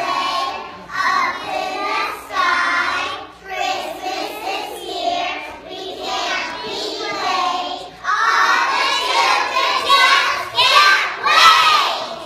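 A group of young children singing a song together, louder in the last few seconds and stopping just before the end.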